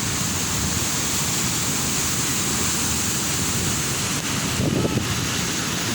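Ocean surf breaking on a beach: a steady, even rush of water noise. A few gusts of wind buffet the microphone near the end.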